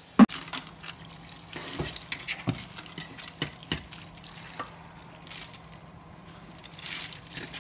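Tap water trickling into a stainless steel kitchen sink while bluefish are gutted on ice, with scattered small clicks and knocks of the knife, fish and ice against the steel. A sharp, loud click about a quarter of a second in, and a steady low hum underneath.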